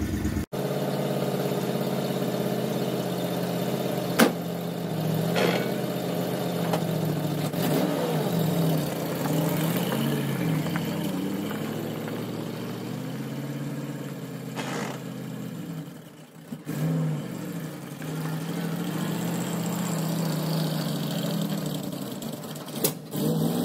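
Vehicle engine running, its revs rising and falling, with a few sharp knocks along the way.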